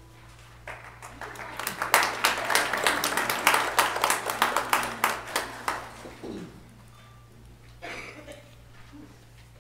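Congregation applauding: a burst of clapping that builds about a second in, holds for several seconds and dies away after about six seconds.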